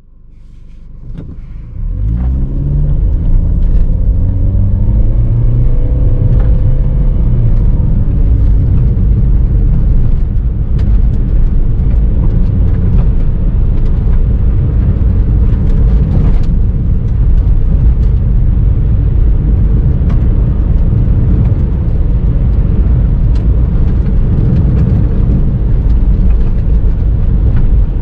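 Car heard from inside the cabin, its engine pulling up through the gears over the first several seconds, then a steady low rumble of tyres on a gravel road with occasional sharp ticks of stones hitting the car.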